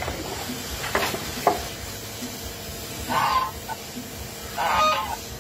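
Two sharp splashes from a dog in shallow water about a second in, then a domestic goose honking twice, each honk about half a second long.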